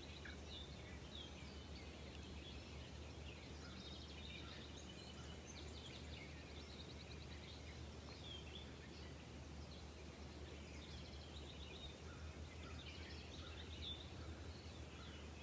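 Small birds chirping, with short calls and a few quick trills, over a faint steady low rumble of outdoor ambience.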